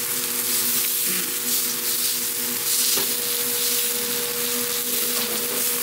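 Spiny lobster meat sizzling on a hot steel teppanyaki griddle, a steady hiss, as the chef turns it with a fork and spatula.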